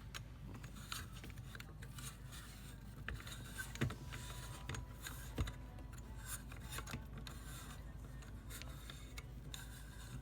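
Faint metallic scraping and small clicks as an AR-15 buffer tube is screwed by hand into the lower receiver's threads, with two sharper knocks about four and five and a half seconds in.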